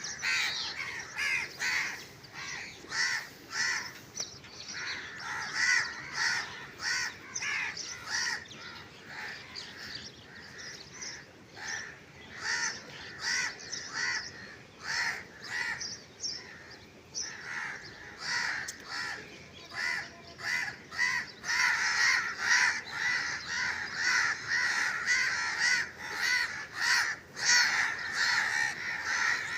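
Crows cawing over and over in short, harsh calls. Near the end the calls come thicker and overlap, as several birds call at once.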